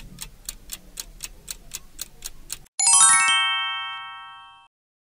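Countdown-timer sound effect of a clock ticking at about four ticks a second. The ticking stops about two and a half seconds in and gives way to a bright chime of several bell-like notes struck in quick succession, which rings and fades away: the time is up and the answer is revealed.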